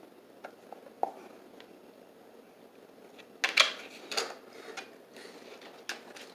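A dog pawing, its claws clicking and scraping in short scuffs: a few light clicks, then louder scrapes about three and a half to four and a half seconds in, and one more click near the end.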